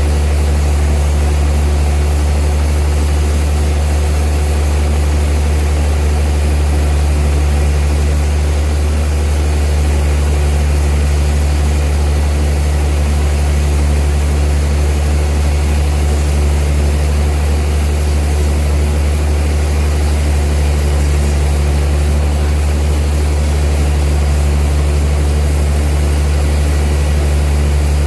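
Old sawmill's machinery running steadily: a loud, unchanging low drone with no breaks.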